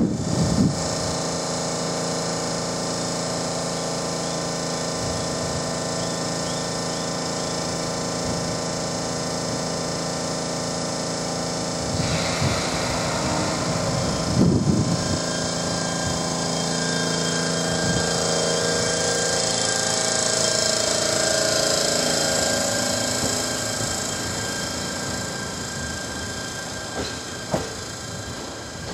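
A JR East E129 series electric multiple unit, two coupled sets, standing at the platform with its onboard equipment humming steadily, then pulling away after a brief thump around the middle. As it accelerates, the traction inverter and motors give a whine that rises in pitch, and the sound fades as the train moves off.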